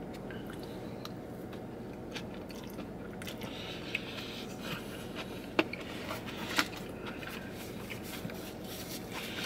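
A person chewing a mouthful of rice and steamed vegetables close to the microphone, with scattered small crunches and mouth clicks, the sharpest two about a second apart past the middle, over a steady low hum.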